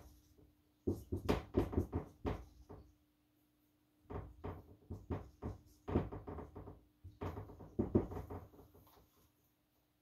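Dry-erase marker writing on a whiteboard: clusters of quick strokes and taps with short pauses between them.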